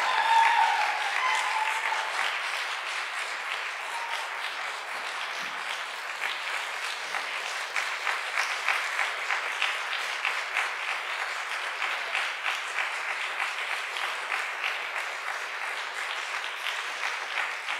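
Audience applauding steadily, loudest in the first second or two, with a brief whoop of voices at the very start. The applause cuts off abruptly at the end.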